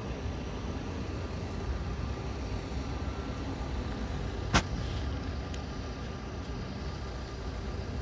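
Steady low rumble of distant city traffic, with a single sharp click about halfway through.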